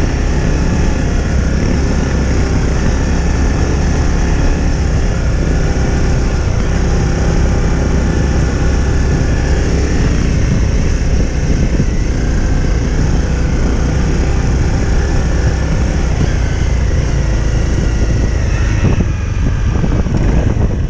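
Trail motorcycle's engine running steadily while being ridden along a rough dirt track, with a heavy low rumble throughout; the sound dips briefly near the end.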